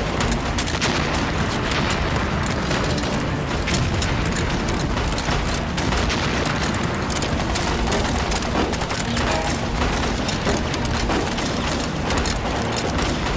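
Film battle sound: dense, continuous rifle and machine-gun fire mixed with booming explosions.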